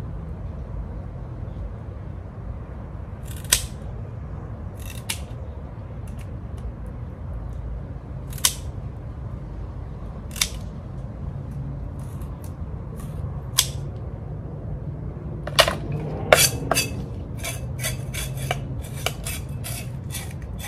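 Sharp clicks and clinks of kitchen utensils during fish preparation, a few at a time at first and then a quick run of them about three-quarters of the way through, over a steady low hum.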